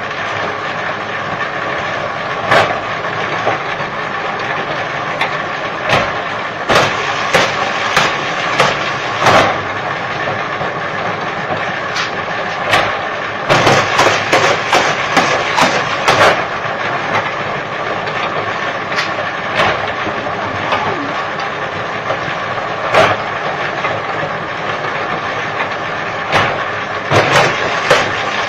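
Motor-driven bamboo splitting machine running: a steady mechanical hum with a faint whine, broken by sharp cracks and clacks at irregular intervals, bunched in a rapid series about halfway through and again near the end.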